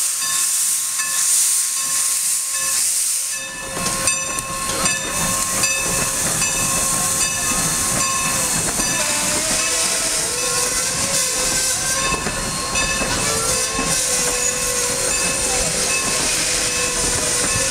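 Steam locomotive hissing steam in strong pulses about once a second. After about three and a half seconds it gives way to its passenger coaches rolling past, a steady rumble with high-pitched steel wheel squeal that wavers and glides in pitch.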